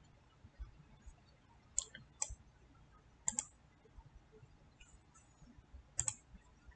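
Faint computer mouse clicks: a few single clicks, then two quick pairs of clicks about three seconds apart.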